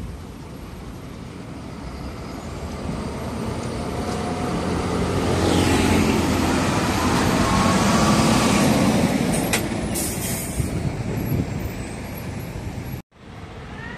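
Hino tractor unit hauling a tank semitrailer drives past close by, its diesel engine growing louder as it approaches and fading as it goes by. A short hiss of air comes about ten seconds in.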